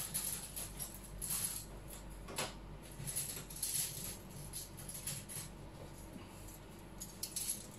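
Faint, scattered light clicks and rustles of small objects being handled, over a steady faint high tone.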